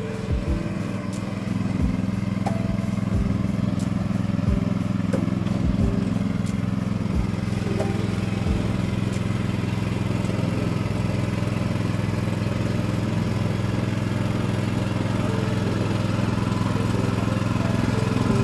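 Small engine of a tracked mini dumper running steadily as the machine is driven across gravel, with a few knocks during the first several seconds.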